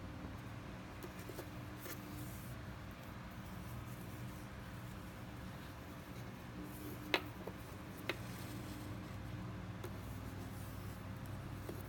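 Fishing line and a hook being handled with the fingers: faint rustling over a steady low hum, with two sharp clicks a second apart about seven seconds in.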